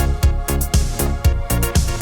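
Background electronic dance music with a steady four-on-the-floor beat, about two kicks a second.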